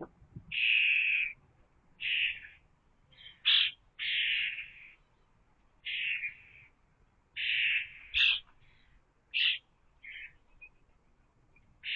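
A bird gives harsh, raspy calls about every second or two, with a few shorter, sharper calls in between.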